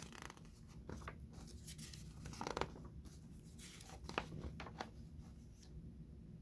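Faint rustling and light clicks of paper being handled: the pages of a part-work booklet being opened and turned.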